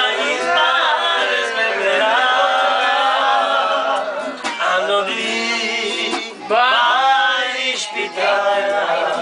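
A group of people singing a song together around a table, men's voices prominent, with a brief break about six and a half seconds in.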